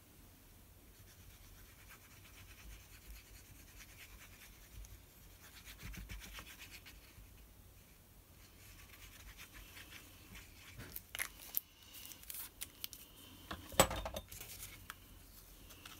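Faint scratchy rubbing of a liquid glue bottle's tip being drawn in strokes across cardstock. Later come several light clicks and one sharp knock near the end as things are handled on the desk.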